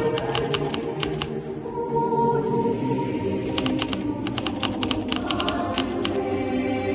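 A choir singing, with quick typewriter keystroke clicks laid over it in two runs, one in the first second and another from about three and a half to six seconds in.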